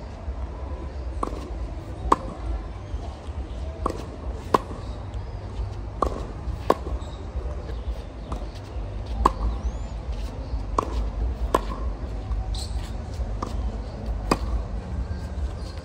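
Tennis racket strings striking a ball back and forth in a volley rally: sharp single pops, irregular but roughly every half second to a second and a half, over a steady low rumble.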